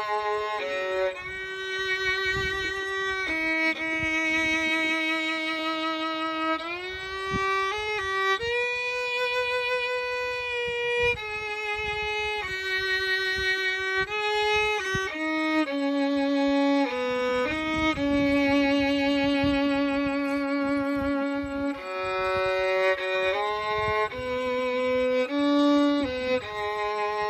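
Background music: a slow melody on a bowed string instrument, long held notes with vibrato and occasional slides between pitches.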